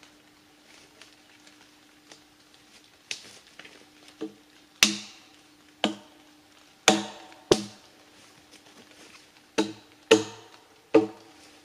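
Axe blows on a felled log: about nine sharp, irregular strikes, each with a short ringing wooden knock, the louder ones in the second half.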